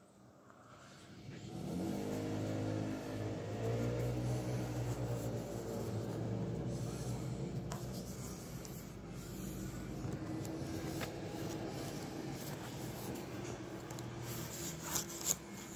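An engine running, its pitch rising over the first few seconds and then holding steady.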